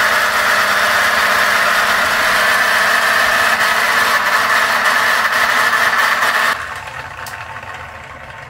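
3D-printed turbocharger-style blower with its impeller geared up from a small electric motor, running at full power with a loud, steady whir of rushing air. Near the end the power is cut suddenly and it winds down, fading away.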